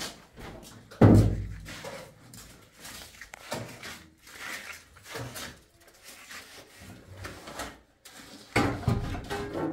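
Building materials being handled and set down: one heavy thump about a second in, then lighter knocks and scrapes, and more clattering near the end.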